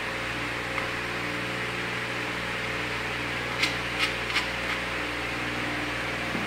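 A steady fan-like hum and hiss, with a few short, sharp clicks about three and a half to four and a half seconds in as a hand works the fitting at the bottom outlet of a corn mill's hopper.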